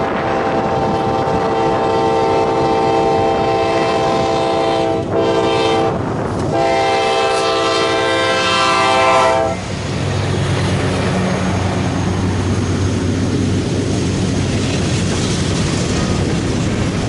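Kansas City Southern de México diesel locomotive's air horn sounding for a highway crossing: a long blast, a short one, then a long one ending about nine and a half seconds in, as the lead locomotives pass close by. After that, the locomotives' low engine rumble and the steady rolling clatter of empty covered hopper cars on the rails.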